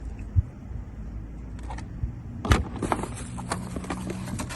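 Scattered clicks and knocks from the handling of a portable fridge and its power cables, the sharpest about two and a half seconds in, over a low steady hum.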